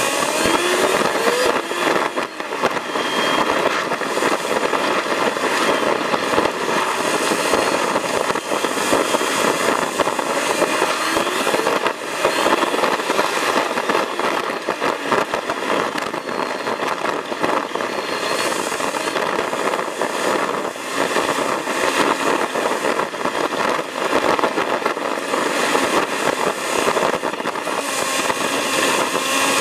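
Sped-up recording of a vehicle driving on a gravel track: a dense, crackling rush of engine, tyres on loose stones and body rattle.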